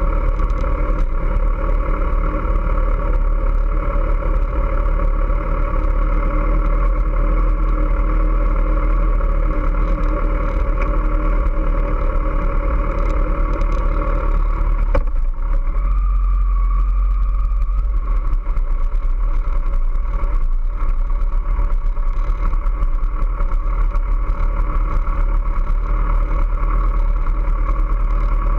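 Kawasaki ZX-14R's 1441 cc inline-four engine running steadily at idle, heard close up from the bike itself. There is a short click and a slight change in tone about halfway through.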